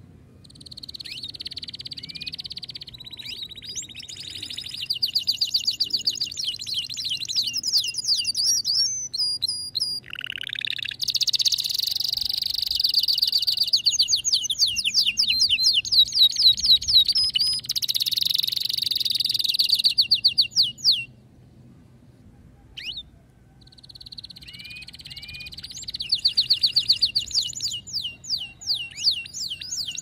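Male domestic canary singing a long, excited song of rapid trills and rolling runs of repeated notes. There is a short pause about two-thirds of the way through, then the song starts up again.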